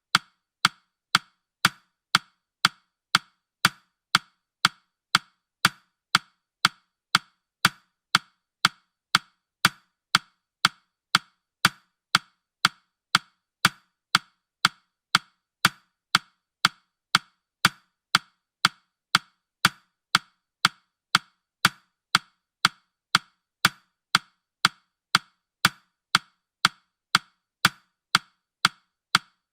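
Ticking sound effect of a countdown timer, an even clock tick-tock at about two ticks a second.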